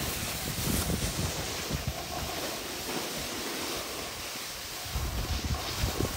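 Wind buffeting the microphone over a steady hiss of a snowboard sliding and scraping over packed snow. The low wind rumble picks up about five seconds in.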